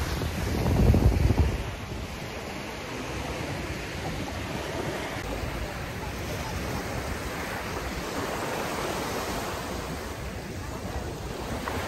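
Ocean surf washing on the beach, heard as a steady rush. Wind buffets the microphone, loudest about a second in.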